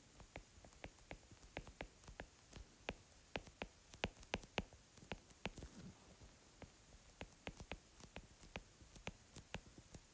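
Faint, irregular clicks of a stylus tip tapping and sliding on a tablet's glass screen while handwriting words, several taps a second.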